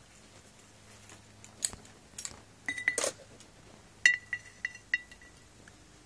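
Cables knocking against a glass jar of diesel as they are lifted out: scattered clicks, then a loud ringing clink about four seconds in followed by three lighter clinks.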